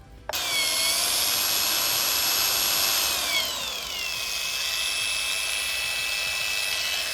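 Angle grinder with a small blade, set to slow speed, running and grinding the cutting edges of hole saw teeth: a steady high whine that starts abruptly just after the start and drops in pitch about halfway through, then holds steady.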